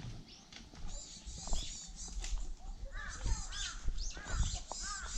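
Wild birds calling in a forest: many short, arching chirps, coming thick and fast from about three seconds in, over a low rumble.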